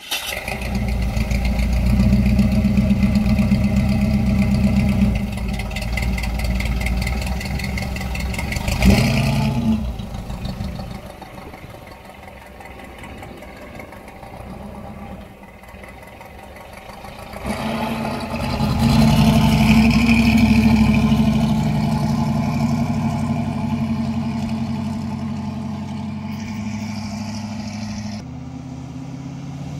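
1972 GMC C15 pickup's engine catching and running, with a sharp burst of revs about nine seconds in. It then drops away as the truck drives off, swells again as the truck comes back by, and fades near the end.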